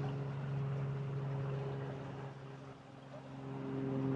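A steady low motor hum with a few even overtones, dipping in loudness a little past halfway and then coming back.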